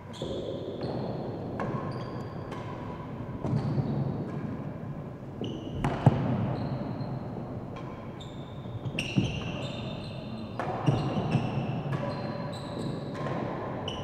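Real tennis rally: the ball is struck by rackets and rebounds off the court walls and penthouse roofs, making an irregular string of sharp knocks, each followed by a short high ringing and echo in the hall. The loudest knock comes about six seconds in.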